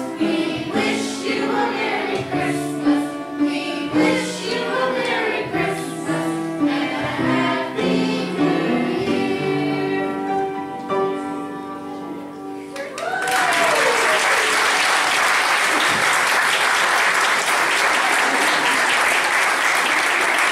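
Children's choir singing the close of a song, ending on a held note about twelve seconds in; the audience then breaks into applause.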